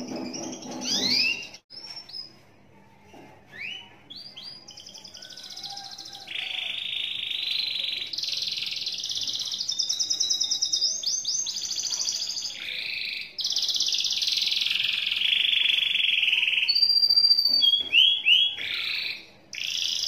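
Domestic canary singing a long, nearly unbroken song of fast trills and rising whistled sweeps. Its longest run goes on for about eleven seconds without a break.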